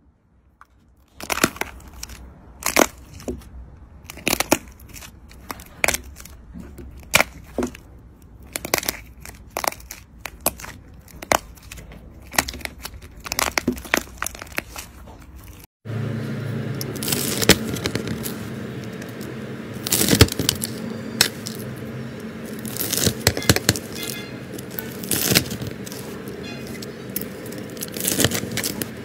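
Slime being squished and pressed by hand, giving irregular sharp crackles and pops. About halfway through the background changes abruptly, and the crackling goes on over a steady low hum.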